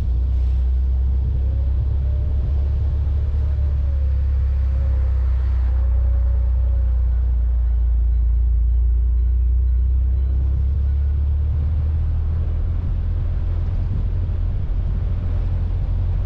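Car driving on the road: a steady, deep rumble of engine and road noise.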